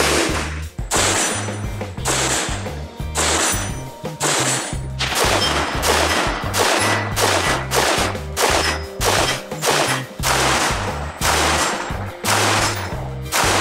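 An AR-15 rifle chambered in 5.56 NATO, with a Faxon three-prong flash hider, fires a long run of quick shots, about one to two a second, with almost none of the ringing ping that pronged flash hiders can give. Background music with a bass line plays under the shots.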